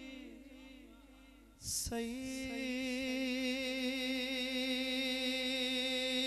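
Unaccompanied naat singing through a PA system: a man's sung note fades away in the echo. About two seconds in he starts a new word and holds one long, steady note.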